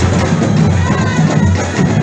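Live folk dance music with a steady drum beat.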